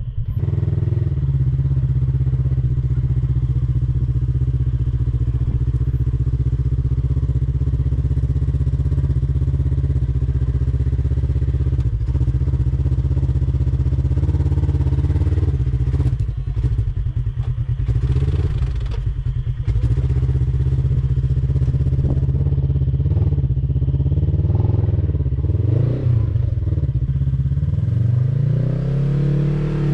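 Rock buggy engine running under load as it crawls up a rutted dirt hill, the revs rising and falling with throttle. A spell of clattering and knocking comes about halfway through, and it revs up and down near the end.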